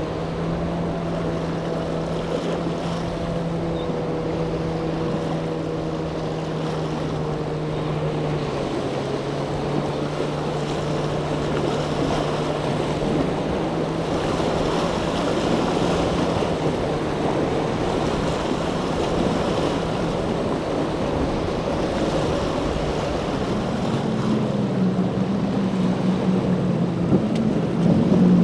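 A small outboard motor on a skiff running at a steady pitch, dipping slightly about a third of the way in, over wind and wave noise. Near the end the louder outboard engines of a large center-console boat build up as it approaches at speed.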